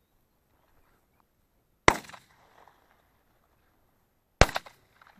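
Two shotgun shots about two and a half seconds apart, each a sharp crack with a short tail; the second is made of several reports in quick succession.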